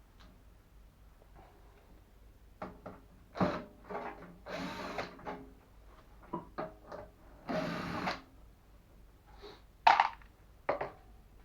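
Microwave oven parts being handled and worked on during disassembly: scattered clicks and knocks, two short rasping sounds of under a second each around the middle, and two sharp clacks near the end.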